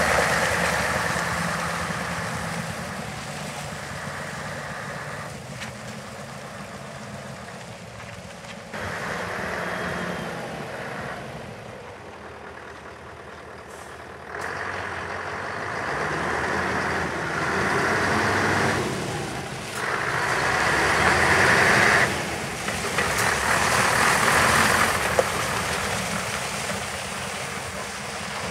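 Scania R144 truck's 14-litre V8 diesel running while the truck drives about. The engine noise swells and falls several times as it accelerates and eases off.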